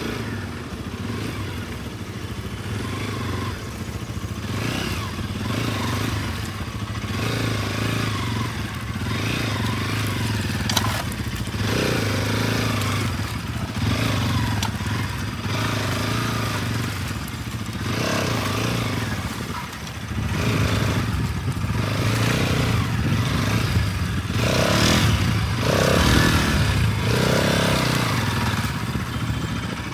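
Bajaj Pulsar NS200's single-cylinder engine running and revving in repeated bursts as the bike is ridden slowly through sticky clay mud, growing louder about two-thirds of the way through.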